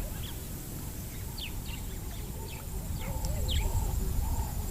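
Wild birds calling in a wetland: many short downward-sliding chirps, with lower wavering calls joining from about three seconds in, over a low rumble.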